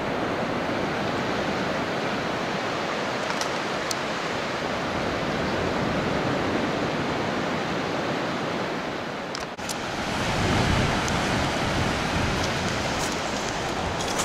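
Steady wash of surf on a sandy beach mixed with wind on the microphone. It dips briefly just before ten seconds in, then comes back louder and deeper.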